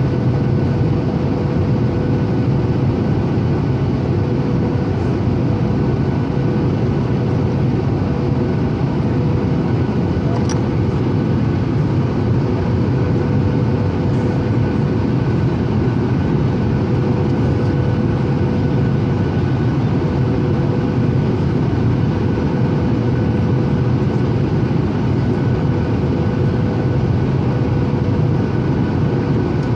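Steady cabin drone of a Boeing 737-800: engine and airflow noise with a steady hum through it, and a single brief click about ten seconds in.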